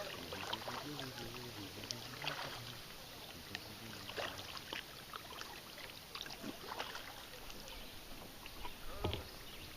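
Kayak paddling on a river: paddle blades dipping into the water, with scattered small splashes and drips throughout and a louder thump about nine seconds in.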